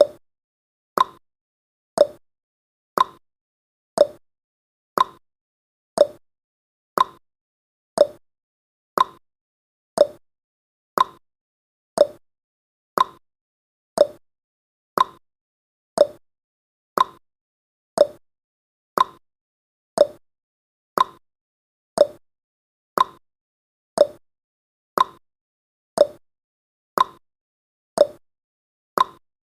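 Countdown timer tick sound effect: a short, sharp click once every second, perfectly regular, marking off the final seconds of the countdown.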